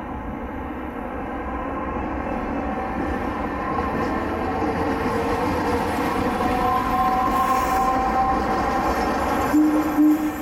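Tosaden 910-type streetcar, a former Lisbon tram, running past on street track. Its rumble grows louder, with drawn-out squealing tones around the middle of the pass and a short loud tone near the end.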